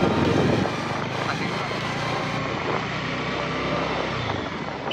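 A motorcycle running along the road, with a steady wind rush on the microphone. The engine pulsing is louder for the first half-second or so, then eases into a steadier rush.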